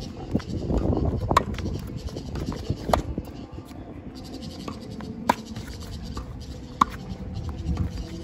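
Tennis ball struck by racket during a rally: four sharp pops of ball on strings, spaced about one and a half to two and a half seconds apart, with fainter hits and bounces between them.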